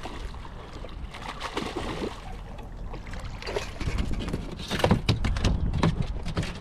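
Irregular knocks, clatter and rattles aboard a small fishing boat as a hooked speckled trout is brought in and handled, busier and louder in the second half.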